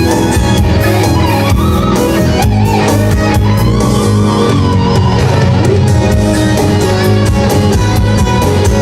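Live instrumental rock played loud: an electric guitar lead with bending, gliding notes over a steady bass and drum backing.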